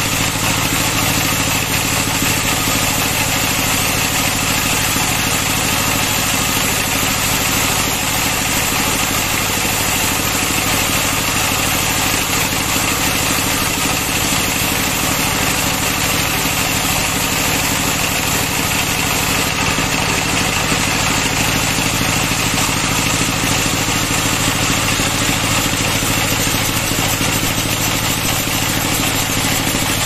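Band saw mill running steadily, its blade ripping lengthwise through a log, over the even drone of the machinery driving it.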